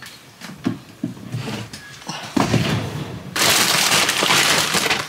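A few light knocks, then a plastic grocery bag rustling and crinkling loudly from about halfway in, as items are pulled out of it.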